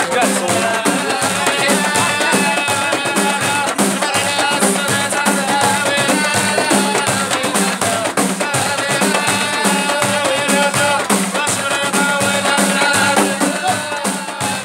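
Ahidous music: several Amazigh frame drums (allun) struck together in a steady, repeating beat, with men's voices singing over them.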